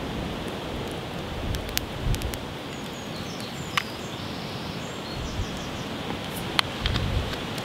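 Strong wind rushing through the trees, with low gusts buffeting the microphone and a few sharp crackles from a wood campfire.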